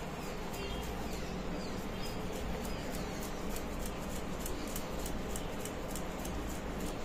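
Boiled potato rubbed back and forth on a flat stainless-steel hand grater, a soft continuous scraping over steady background noise.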